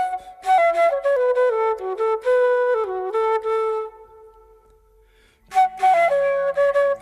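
Background music: a flute playing a melody of held, stepping notes, which fades out about four seconds in and starts again a second and a half later over a low drone.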